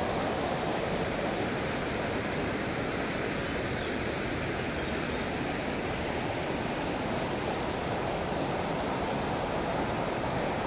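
Fast mountain stream rushing over rocks: a steady, unbroken rush of water.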